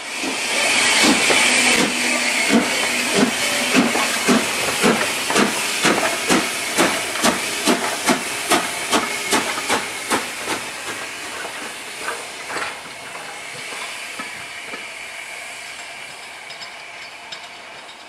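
Steam locomotive at the head of the train working hard: a burst of steam hiss, then sharp exhaust beats about two a second that quicken a little and fade away after the middle, over a steady hiss.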